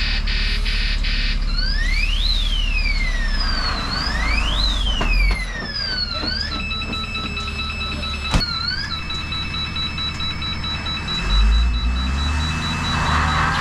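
A truck's electronic reverse alarm sounding over its idling diesel engine. The alarm cycles through patterns: a fast warble, then repeated rising-and-falling sweeps, then rapid beeping. The engine revs up briefly near the end.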